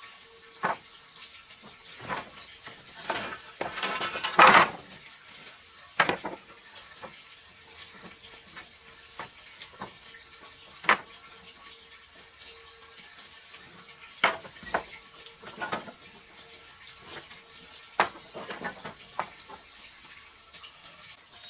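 Scattered light knocks and clatters of objects being handled and set down, with a louder scraping rattle about four seconds in.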